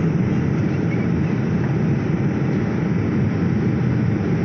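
Steady cabin noise inside a passenger jet on its landing approach: the even rush of engines and airflow, mostly low in pitch, with no distinct events.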